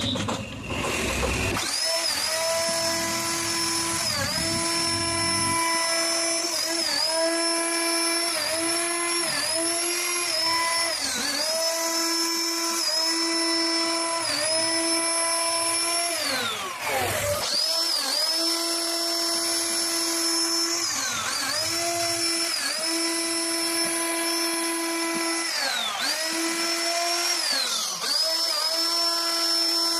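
CNC router spindle whining steadily as it carves a design into wood. Its pitch dips briefly again and again as the bit takes load. About halfway through, the pitch sags deeply and then climbs back up.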